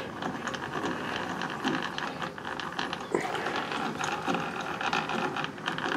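Automatic-feed gearing in the rebuilt apron of a Craftsman Atlas 12-inch lathe turned by hand, the meshing metal gears giving a steady run of fine, quick clicks.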